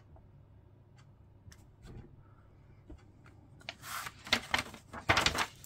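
Paper instruction booklet being handled, with a few faint ticks, then a page rustling as it is turned over about four seconds in.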